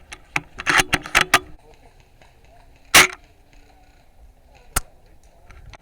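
Novritsch SSG24 spring-powered airsoft sniper rifle: a cluster of sharp clicks and clatter in the first second and a half, then one loud sharp shot about three seconds in and a shorter sharp crack near the end.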